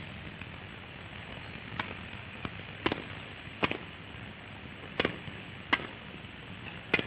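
Tennis ball being struck back and forth in a rally: seven sharp knocks, some about three quarters of a second apart and others over a second apart, over the steady hiss of an old film soundtrack.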